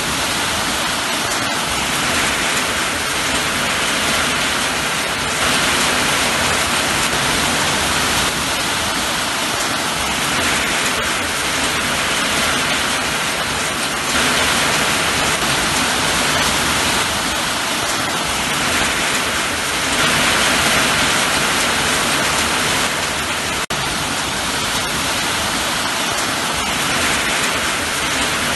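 Steady rain falling, its hiss swelling and easing every few seconds, with one brief click about two-thirds of the way through.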